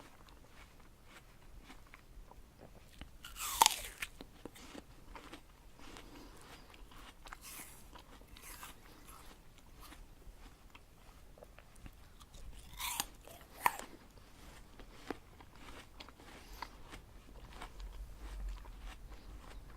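A crisp apple being bitten and chewed. There are two loud crunching bites, one about three and a half seconds in and a doubled one about thirteen seconds in, with steady small crunching chews between them.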